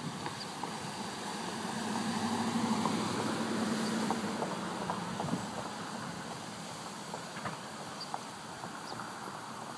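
A car running on the street, its engine hum swelling to its loudest about two to four seconds in, then fading as it passes, with a few faint ticks.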